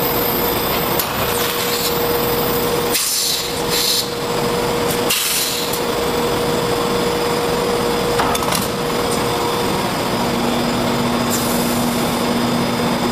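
Blown film extrusion line running: steady machine noise with a constant hum that drops to a lower hum about ten seconds in, briefly dipping twice around three and five seconds in.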